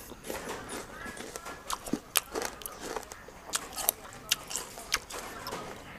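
A person chewing a raw madan fruit with the mouth closed, giving irregular crisp crunches and wet mouth clicks.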